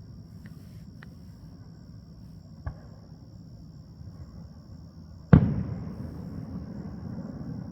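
Aerial fireworks shells bursting: two faint cracks and a small thump, then one loud bang about five seconds in that dies away in a long rumble.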